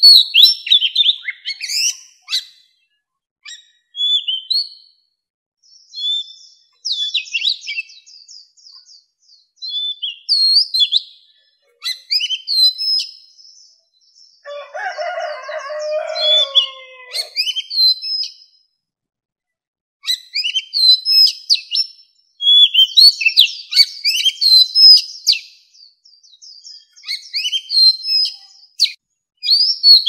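Oriental magpie-robin singing in short, varied whistled phrases separated by pauses, with one lower-pitched passage about halfway through. This is the full song of a mature wild male, the kind used as a lure call.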